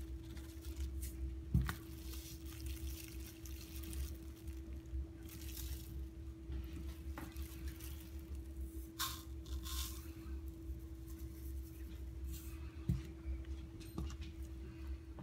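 Handling noise: a loose plastic glove crinkling and salt shifting in small cups as a sprat is packed into salt, with a few light taps as the cups are set down, over a steady low hum.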